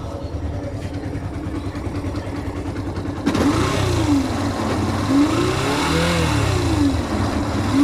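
Yamaha FZ 2.0 single-cylinder motorcycle engine idling, then from about three seconds in revved up and down several times. It carries a wasp-like buzzing noise that the owner puts down to a failing stator.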